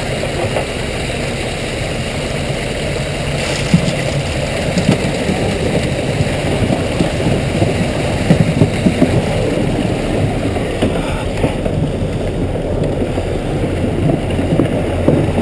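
Water and trout rushing out of a hatchery stocking truck's tank down the discharge tube, over the steady hum of the truck's engine running, with a few brief knocks.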